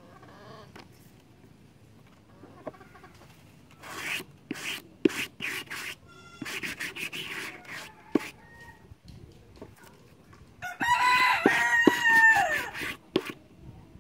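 A rooster crows once near the end, a loud call of about two seconds. Before it come a series of scratchy brush strokes and a few taps as glue is brushed onto rubber sandal soles.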